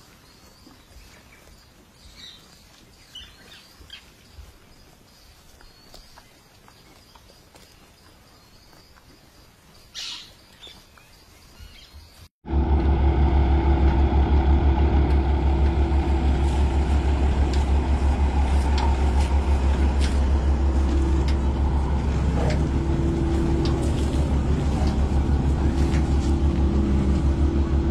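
Quiet farmyard with a few faint bird chirps; then, with a sudden cut about twelve seconds in, a Malkit 997 combine harvester's engine and machinery running loud and steady with a deep low drone.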